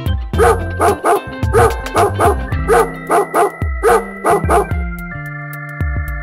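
A puppy barking in quick, short barks in groups of two or three, about fifteen in all, over background music with held chords; the barking stops about five seconds in while the music carries on.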